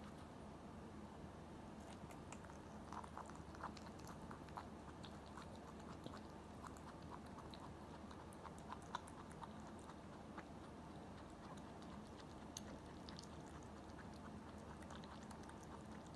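Pet rabbit chewing mango: faint, quick clicking chews that come in runs.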